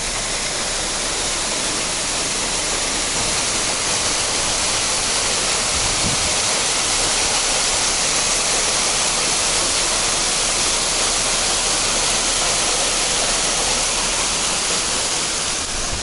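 Waterfall cascading down a rock face: a steady, loud rush of falling, splashing water, growing louder over the first two seconds and then holding even.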